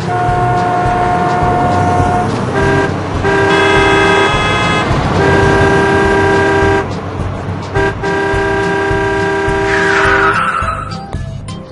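Cartoon vehicle horn honking in several long blasts, one after another, over a steady low engine hum. A short falling whoosh comes near the end.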